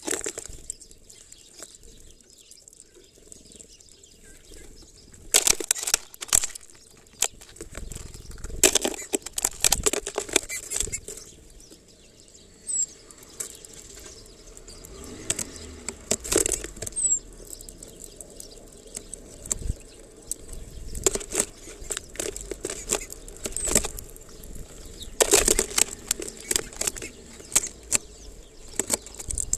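Small birds at a plastic-bottle feeder of sunflower seeds: several bursts of wing flapping, with scrabbling, pecking and tapping on seeds and plastic. A few faint high chirps come between the bursts.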